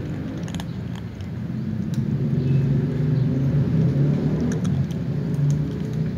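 A steady low rumble with cats crunching dry kibble, a few faint crisp crunches heard over it.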